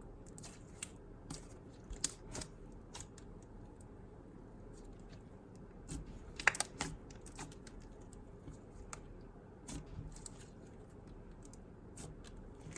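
Jelly–icy hybrid slime with instant snow being squeezed and poked by hand, making irregular small clicks, pops and crackles. A sharper pop stands out about six and a half seconds in.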